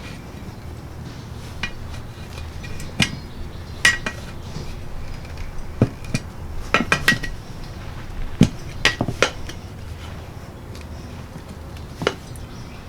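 Screwdrivers clinking and knocking against a metal lawn-tractor wheel rim as a new tire's bead is levered on, in scattered sharp metallic clicks, some in quick clusters of two or three.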